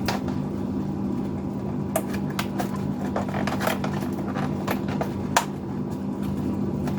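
Scattered light clicks and taps of a small plastic case being opened and handled, over a steady low hum.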